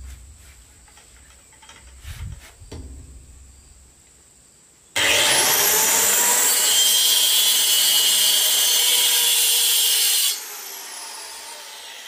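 A few light knocks of wooden boards being handled, then about five seconds in a corded circular saw starts with a rising whine and cuts through a wooden plank for about five seconds. The cut stops suddenly and the blade winds down with a falling whine.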